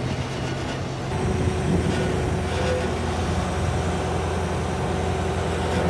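Engine of a pump-hoist service truck running steadily, picking up a little about a second in, while the rig lowers the drop pipe and pump into the well.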